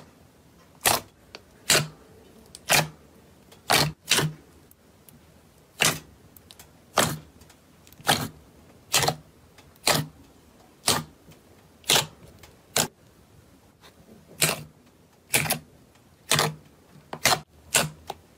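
Fingers pressing and poking into a tray of thick slime, trapped air bursting out in sharp pops about once a second, now and then two in quick succession.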